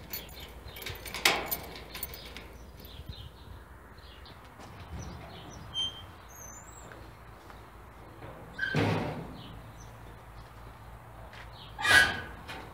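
Keys jingling and a lock clicking open on a steel garage door, with a sharp clunk about a second in. Then the heavy sheet-metal door leaves are swung open, with a loud clank about nine seconds in and another near the end. Birds chirp faintly.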